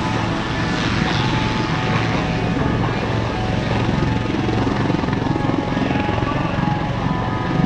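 Two Royal Navy AW159 Wildcat helicopters running at close range, a steady rotor chop under a turbine whine, as one lifts off into a hover.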